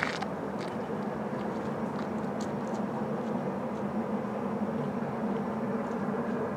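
LMS Jubilee class three-cylinder 4-6-0 steam locomotive 45699 Galatea working hard in the distance, its exhaust blending into a steady rumble as it approaches.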